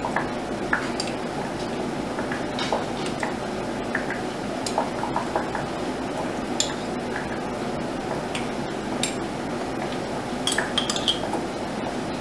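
Metal spoon clinking and scraping against the glass rims of mason jars while thick relish is spooned in: scattered light clinks, several close together near the end, over a steady background noise.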